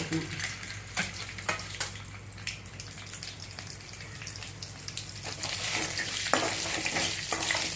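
Mustard seeds, chana dal and urad dal frying in hot oil for a tempering. The oil sizzles steadily, with scattered sharp pops and crackles, and gets louder from about five and a half seconds in.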